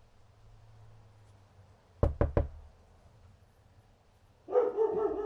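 Three quick, sharp knocks about two seconds in. Then, near the end, a dog breaks into loud barking.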